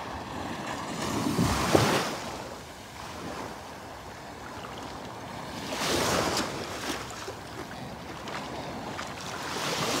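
Small Gulf of Mexico waves washing up the beach and running back over the sand, the surf rising three times, about four seconds apart.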